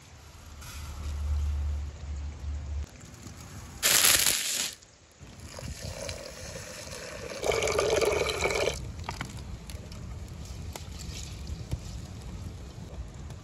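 Dry rice grains poured into a copper pot in a short rushing spill about four seconds in. Water then runs into the pot onto the rice, loudest for a second or so past the middle, followed by the rice being swished by hand in the water.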